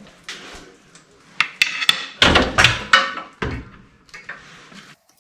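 Heavy metal clunks and knocks as a Farmall C tractor is split, its rear half rolled back off the engine at the clutch. A few sharp clicks come first, then a cluster of loud thuds about two seconds in.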